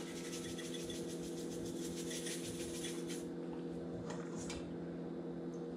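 Pepper shaker being shaken over meat in a pot, a fast faint rattle lasting about three seconds, then a couple of soft handling sounds, over a steady low hum.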